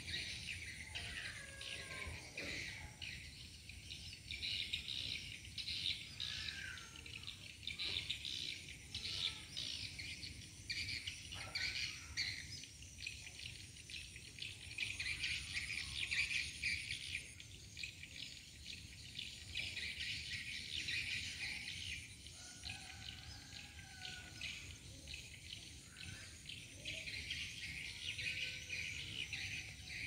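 Many birds chirping and twittering in quick overlapping notes, with a few lower whistled calls now and then, over a steady high insect drone.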